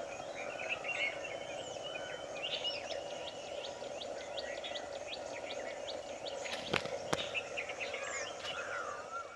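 Many birds chirping and calling, with short rising and falling notes, over a steady hum. Two sharp clicks come about seven seconds in.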